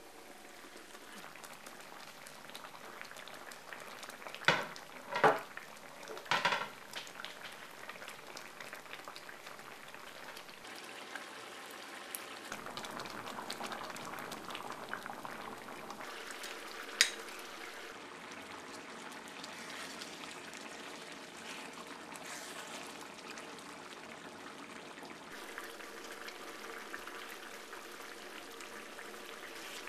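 Green curry sauce boiling hard in a heavy pan, a steady bubbling sizzle. A few loud, sharp knocks come about four to six seconds in, and another at around seventeen seconds.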